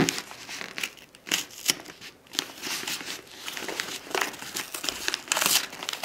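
Paper mailing wrapper being picked at and torn open by hand, crinkling and ripping in irregular bursts.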